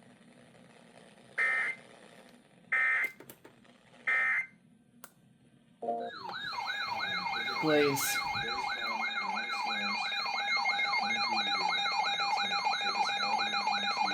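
Emergency Alert System end-of-message data bursts: three short, raspy digital bursts about a second and a half apart. About six seconds in, a loud warbling siren-like alert tone starts, sweeping up and down about two and a half times a second over steady tones, and runs on through the end.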